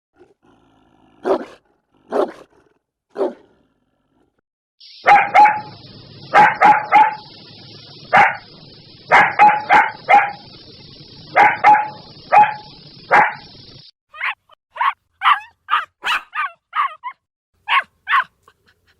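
Dogs barking: three single barks, then from about five seconds in a dog barking in quick clusters of two or three over a steady hiss, and in the last few seconds a fast run of about ten short, clipped barks.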